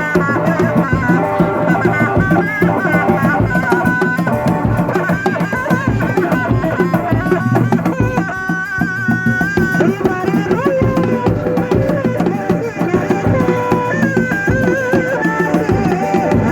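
Traditional kuda lumping music: hand drums beat a quick, steady rhythm under a high, wavering melody line that holds and bends its notes.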